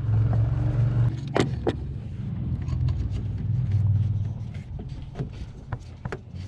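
Chevrolet truck V8 idling steadily with a low, even hum while a Sea Foam treatment runs through it to free a stuck valve. Two sharp clicks stand out about a second and a half in, with small handling ticks after.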